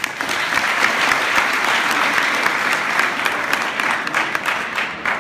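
A large audience of students applauding, many hands clapping at once; the applause starts suddenly and stays steady.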